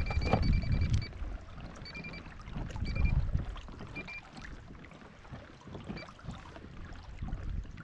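Wind gusting on the microphone and water lapping against a kayak, with short high squeaks recurring every second or so.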